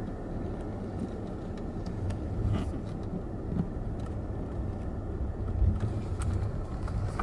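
A car rolling slowly at low speed on a forest road, its engine and tyres making a steady low rumble that swells briefly twice, with a few faint clicks.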